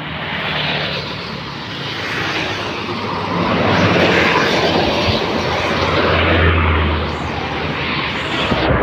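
A large road vehicle, most likely a bus, passing close by. Its engine and the rush of tyre and air noise build to a peak about four seconds in, with a deep engine drone strongest around six to seven seconds.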